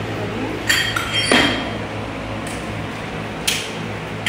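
Sharp metallic clinks of a barbell's spring clip collar and steel sleeve being handled, several spread over a few seconds, over a steady low hum.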